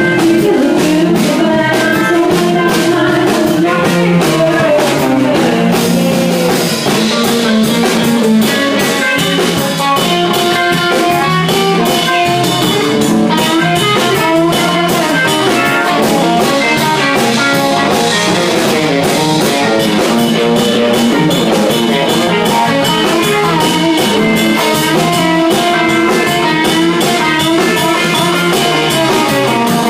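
Band playing a blues jam: guitar over a drum kit keeping a steady beat.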